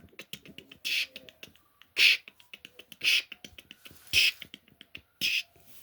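A man's improvised mouth-percussion 'beep bop': five short hissing beats about a second apart, with small plastic clicks of LEGO pieces being handled in between.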